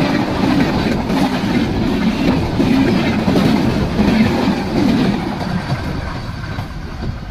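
Passenger train coaches passing close by, their wheels rumbling and clattering over the rails, growing quieter near the end as the train moves away.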